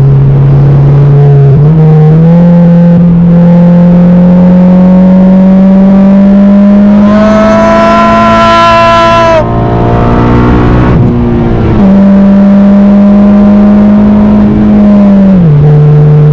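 Honda Civic Si's K20Z3 four-cylinder engine pulling under load. Its note climbs steadily and turns loud and harsh with strong upper tones for a couple of seconds, then eases off about halfway through and drops in pitch near the end.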